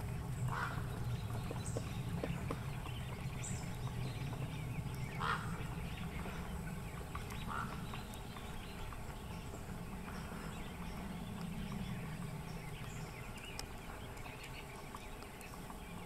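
Pileated woodpecker tapping and prying at dead wood, soft scattered taps over a steady low rumble. A few short call-like notes come about half a second in, around five seconds and around seven and a half seconds.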